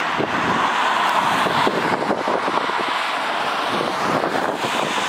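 Boeing 787-8 airliner's Rolls-Royce Trent 1000 turbofan engines running with a steady rushing sound on the runway before take-off, with wind buffeting the microphone.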